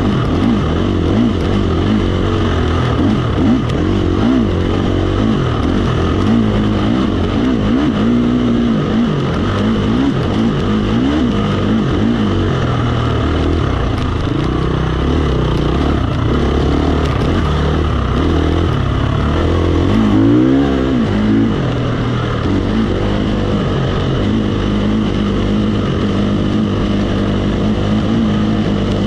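KTM 350 XC-F dirt bike's single-cylinder four-stroke engine running under load while ridden, the revs rising and falling with the throttle and gear changes, heard close from the handlebars. About twenty seconds in it revs up sharply and drops back.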